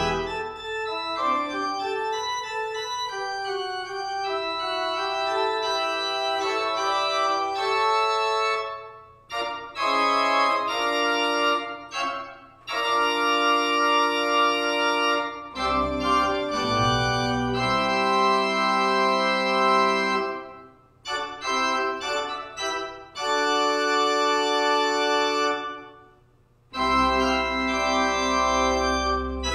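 Church organ playing held chords in phrases, breaking off briefly several times between them.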